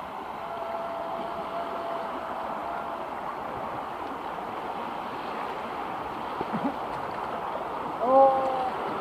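River water rushing over rapids, a steady wash of noise, with a brief voice call about eight seconds in.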